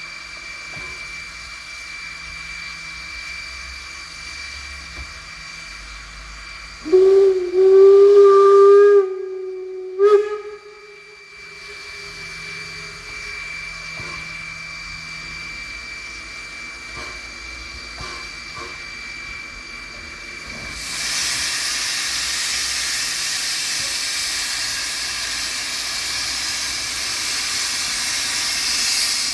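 Steam whistle of a 1946 Energie 0-6-0 tank steam locomotive: one blast of about two seconds, then a short second blast. About twenty seconds in, a loud, steady hiss of steam from the open cylinder drain cocks begins as the locomotive starts away.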